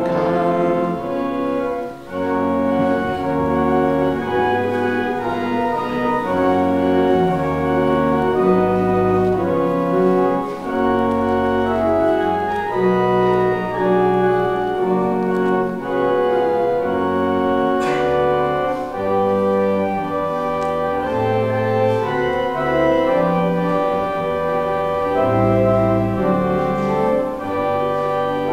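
Church organ playing a slow passage of held chords that change every second or so, with a moving bass line.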